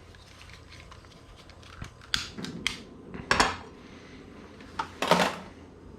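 Kitchen utensils knocking and clinking against a cooking pan: quiet at first, then several separate clinks and knocks from about two seconds in.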